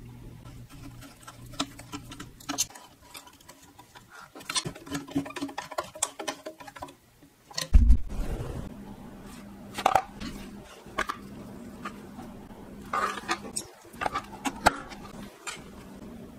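Hands handling and fitting plastic and metal parts on a Pfaff 1245 industrial sewing machine: a run of small clicks and taps, with one heavier thump about eight seconds in.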